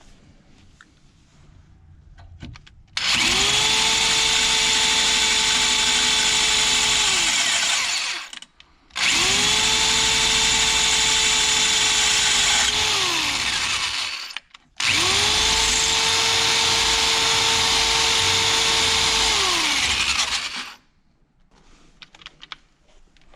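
Electric drill with a keyed chuck boring an oil-lubricated bolt hole through the car's floor metal for a roll bar mount. It runs in three bursts of about five seconds each, holding a steady whine that sags in pitch just before each stop.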